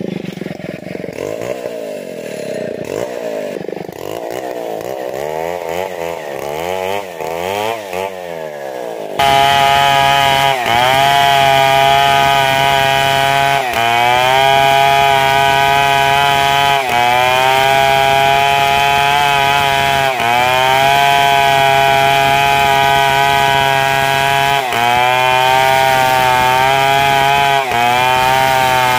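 Large two-stroke chainsaw running at full throttle, rip-cutting lengthwise through a hard matoa log; the engine note dips briefly every few seconds under load and recovers. For the first nine seconds a more muffled engine drone with swaying pitch is heard, before the full, close chainsaw sound cuts in abruptly.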